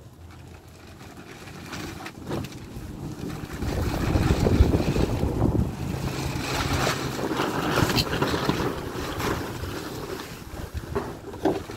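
Wind buffeting the microphone: a gusty low rumble that builds about four seconds in and keeps going, with some rustling of a plastic bag.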